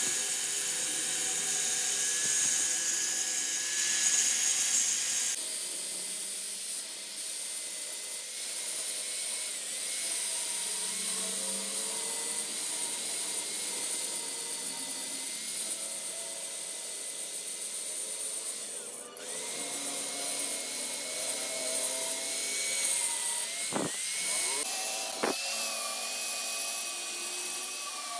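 Handheld angle grinder running steadily as its disc grinds down weld built up on a truck differential pinion's spiral gear tooth, reshaping the rebuilt tooth; a high motor whine wavers slightly in pitch as the disc bears on the metal. The sound dips briefly about two-thirds through, and two sharp clicks come near the end.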